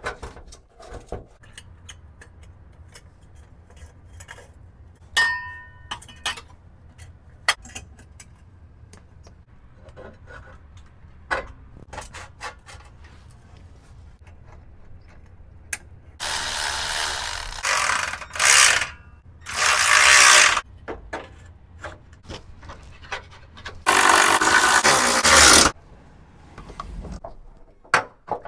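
Light metal clicks, taps and scrapes of hand work on a car's exhaust and underbody. From about 16 seconds in come four loud bursts of a compact cordless power tool running in bolts while the exhaust pipe is fitted. The longest burst, near the end, lasts nearly two seconds.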